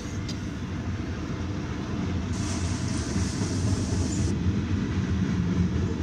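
Freight train of autorack cars and covered hoppers rolling past, a steady low rumble of wheels on rail heard from inside a car. A hiss rises over it about two seconds in and lasts about two seconds.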